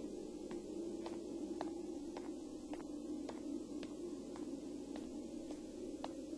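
A low steady hum with faint sharp clicks, evenly spaced a little under twice a second.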